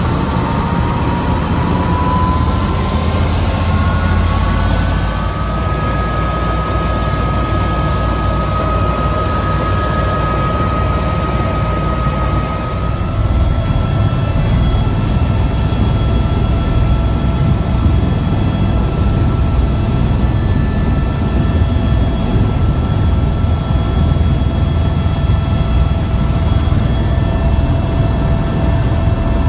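Tour helicopter's turbine engine and rotor heard from inside the cabin: a whine rising in pitch over the first few seconds, then holding steady over a deep rumble. It gets louder about halfway through.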